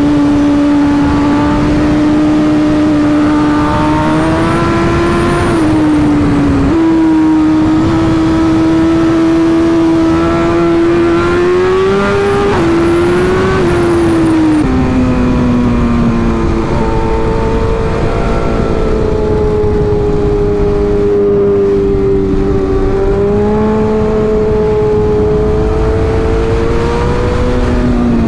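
Sport bike's inline-four engine running hard at road speed, with wind rushing over the bike-mounted microphone. The engine note holds steady for long stretches and rises and falls with throttle and gear changes, dropping sharply about five and a half seconds in and again around fifteen seconds, and climbing near the end.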